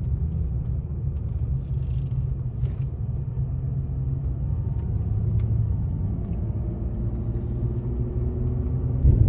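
Steady low rumble of a truck driving at highway speed, heard from inside the cab: engine and tyre noise.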